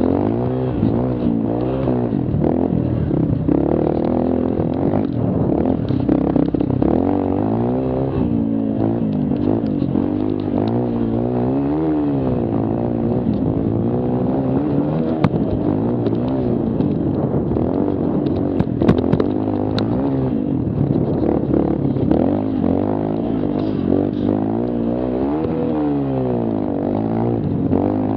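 Mini quad ATV engine revving up and down over and over as the throttle is worked along a dirt trail. A few sharp knocks from the machine hitting bumps come around the middle.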